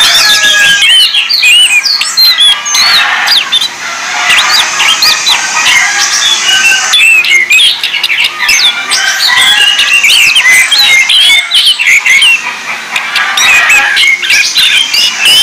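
Orange-headed thrushes singing: a dense, unbroken stream of quick whistled notes that sweep up and down in pitch, several phrases overlapping.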